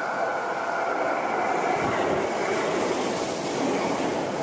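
Seibu 40000 series electric commuter train passing at close range. Wheels run over the rails with a steady rushing noise that builds as the train reaches the camera, and a faint whine fades out in the first two seconds.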